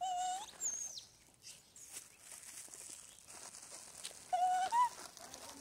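Long-tailed macaques giving short high-pitched cries, one at the start and another about four and a half seconds in, each held briefly and then sliding in pitch.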